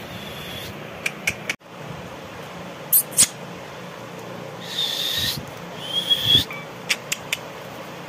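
Indian ringneck parakeet calling: two short, loud, sharp calls about three seconds in, then longer harsh screeches around five and six seconds, with a few brief clicks before and after, over a steady background hum.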